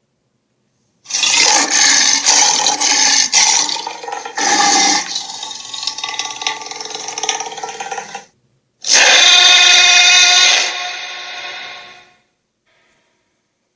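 Two designed dinosaur (Albertosaurus) roar sound effects, separated by dead silence. The first is a long rough roar of about seven seconds with a second surge partway through. The second is a shorter roar, rich in layered pitched tones, that fades out.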